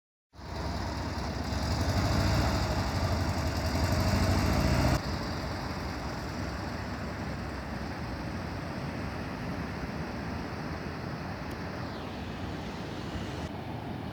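Motor vehicle running, engine and road noise. It is louder for about the first five seconds, then drops suddenly to a steadier, quieter run.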